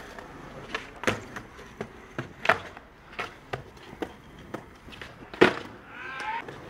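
Skateboard on concrete: wheels rolling with scattered clacks and knocks, the board popping up onto a concrete ledge and the truck grinding along it, then a loud slap of the board landing about five and a half seconds in.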